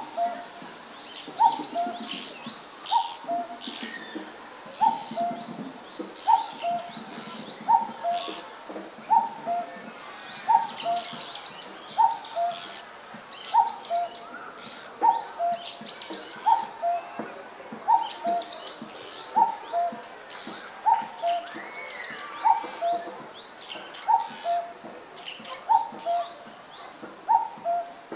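Common cuckoo singing its two-note "cuck-oo", the second note lower, repeated steadily about once a second. High chirps of small birds sound over it.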